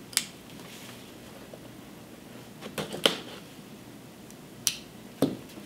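A knife slitting the packing tape on a cardboard box: a handful of short, sharp scrapes and clicks, the loudest about three seconds in.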